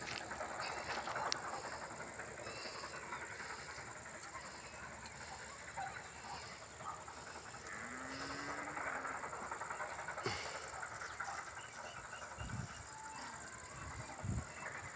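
Outdoor ambience: a steady high-pitched buzz over a low, even hiss, with a few faint knocks and a short low sliding tone about eight seconds in.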